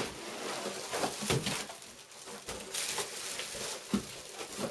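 Plastic wrapping crinkling and foam packing inserts rubbing as a bagged LCD monitor is worked out of its cardboard box: irregular rustling with a few louder bumps.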